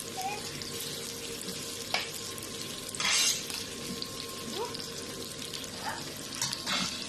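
Kitchen food-preparation sounds: a steady watery hiss, a sharp knock about two seconds in, and a louder rushing burst about three seconds in.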